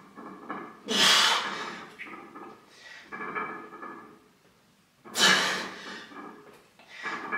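A man breathing hard under exertion, with two loud, hissing exhales about four seconds apart and softer breaths between them, typical of pushing through heavy bench press reps.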